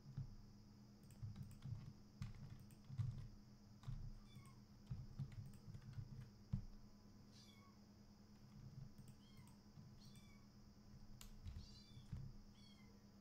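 Faint computer mouse and keyboard clicks, scattered and irregular, the loudest about 3 s and 6.5 s in, over a steady low hum. Several faint short animal calls, each falling in pitch, come in small groups from about 4 s onward.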